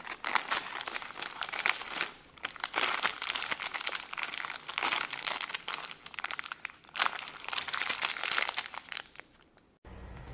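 Clear plastic bag of TV wall-mount screws, bolts and washers crinkling as fingers squeeze and turn it, in several spells with short pauses; it stops abruptly near the end.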